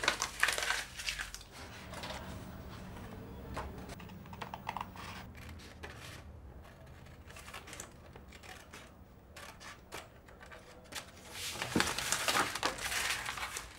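Scissors snipping through paper, with sheets rustling as they are handled: a run of crisp clicks and rustles, busiest at the start and again near the end.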